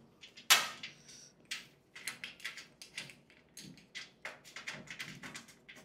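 A nut being fastened by hand and with a small wrench onto a caster bolt on a steel filing-cabinet pedestal: a scattered series of small metal clicks and taps, the loudest about half a second in.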